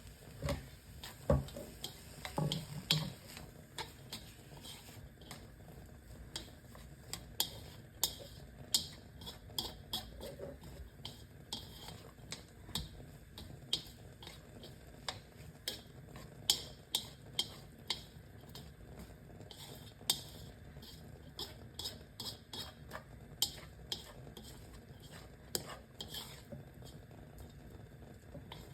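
Kitchen utensils clinking and scraping against dishes: irregular sharp taps and clatters, about one or two a second.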